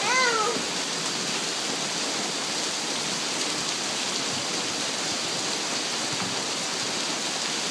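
Steady rain falling on wet pavement and grass, an even hiss that holds at one level throughout. A short voice sounds at the very start.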